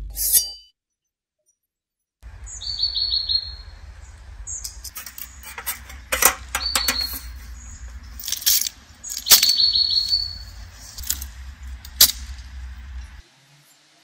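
Small birds chirping in short repeated high trills over a steady low rumble, with scattered light clicks and knocks as a folding slatted camping table is handled and a wooden easel is set on it. The sharpest knock comes near the end.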